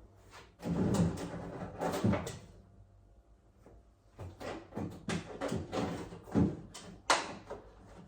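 Freezer drawers and packs of frozen food being handled: a run of knocks, bumps and rustling in two bursts, with one sharp knock about seven seconds in.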